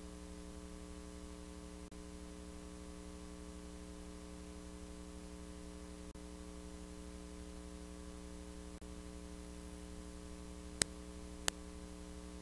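Steady electrical hum with a set of buzzing higher tones over it, from the audio line rather than any scene. Near the end come two sharp clicks less than a second apart.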